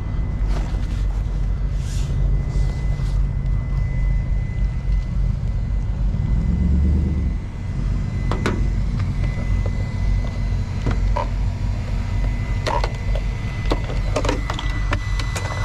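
A steady low rumble with a faint steady high tone above it. From about halfway through come scattered sharp clicks and knocks, closer together near the end, as the RC buggy is set on a plastic-lined pickup tailgate and its body is pulled off.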